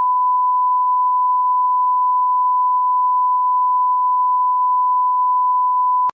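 A steady electronic beep: one pure, unwavering tone held for about six seconds, switching on and cutting off abruptly with a click.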